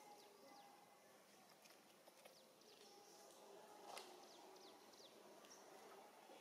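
Near silence: faint outdoor ambience with scattered thin, high, falling chirps and a single soft click about four seconds in.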